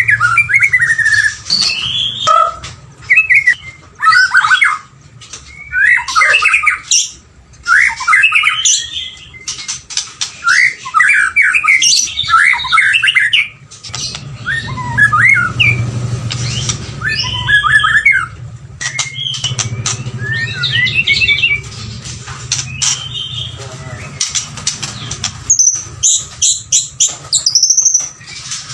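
White-rumped shama singing: a long run of rapid, varied whistled phrases broken by short pauses, with higher, thinner notes near the end.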